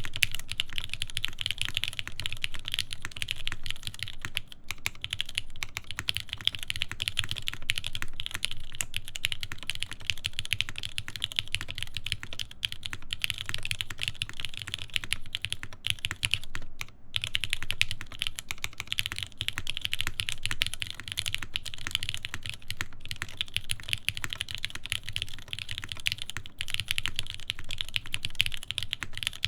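Steady, fast typing on a mechanical keyboard with lubed linear Cherry MX Black switches, GMK keycaps and a carbon fiber plate, the keystrokes coming in a continuous stream with a brief pause about 17 seconds in.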